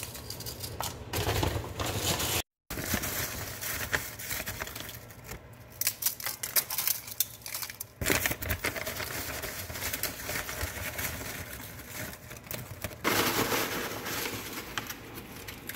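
Tortilla chips crackling and crunching as they are broken and dropped by hand into a pan of beaten egg, with a louder rustle of a paper bag of tortilla strips near the end as a hand reaches into it.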